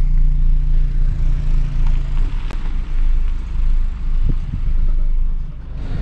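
A Honda Civic's engine running, heard from inside the cabin as the car moves slowly. The low hum is steady for about the first two seconds, then turns uneven, with a couple of soft knocks.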